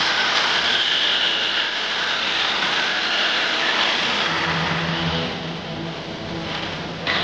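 Arrma Kraton 6S RC car's brushless motor whining at speed while its hard 3D-printed plastic drift wheels slide and scrub across concrete. The whine is high and steady, with a lower hum showing in the second half as the car runs off into the distance.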